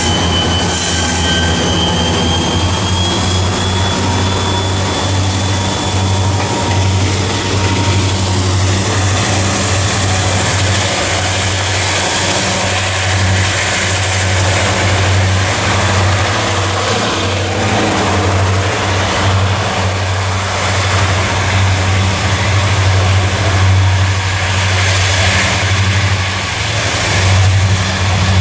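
Diesel freight locomotives and their wagons rolling past: a steady low engine rumble with a thin high whine of wheels on rail above it.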